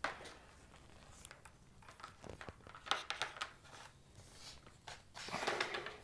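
Hands handling a cable on a cutting mat: scattered light clicks and ticks, with a short rustle of the cable being dragged and laid out near the end.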